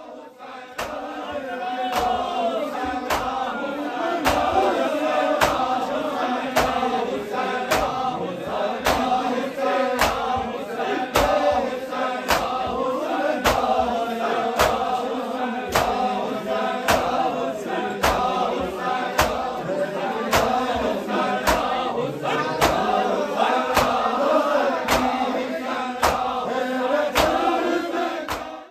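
A group of men chanting a noha (Urdu mourning lament) in unison, with sharp rhythmic slaps of matam chest-beating keeping time at just under two a second. It fades in over the first few seconds.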